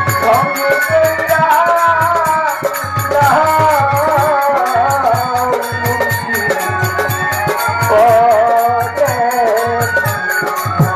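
Violin bowing a wavering, gliding folk melody over a steady beat of hand drums: an instrumental passage of Bengali murshidi folk music.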